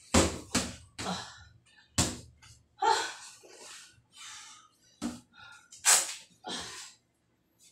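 Boxing-gloved punches hitting a hanging heavy bag in a string of sharp thuds, mixed with short, hissing exhales as the boxer breathes out through his punches. The punches are bunched in the first two seconds and come once more about five seconds in; the exhales come mostly in the second half.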